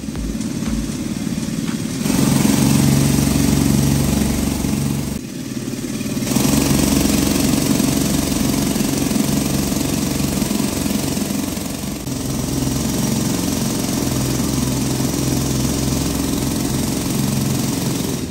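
Pneumatic airleg (jackleg) rock drill running with a loud, steady mechanical clatter. It stops for about a second around five seconds in, then runs again.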